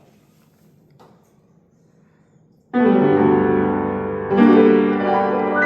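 A piano, quiet for the first two and a half seconds apart from a faint tap, then playing a full chord that rings on, followed by a second chord about a second and a half later.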